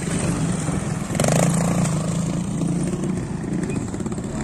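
Trials motorcycle engine revving as the bike climbs over rock steps, with a louder burst of throttle about a second in.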